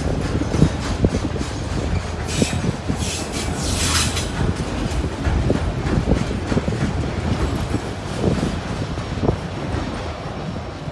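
Freight train of autorack cars rolling past: a steady rumble with frequent wheel clicks over the rail joints. Brief high-pitched wheel squeals come about two to four seconds in.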